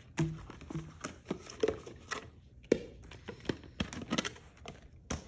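Scattered light clicks and taps of a large hollow plastic egg being handled and pried open, with a sharper click just before the end.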